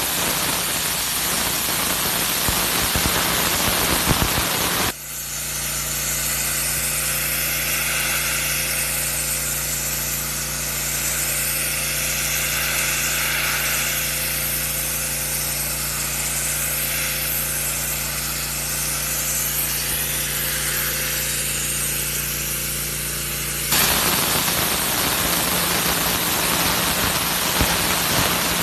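Pressure washer spraying: a steady hiss of high-pressure water with the machine's steady hum underneath. The sound changes abruptly about five seconds in and again near the end, as one clip cuts to the next.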